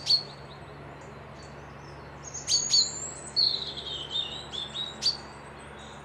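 Songbirds singing: a few short, sharp chirps near the start and again in the middle and later on, with a falling, warbled phrase in between, over a steady low hum.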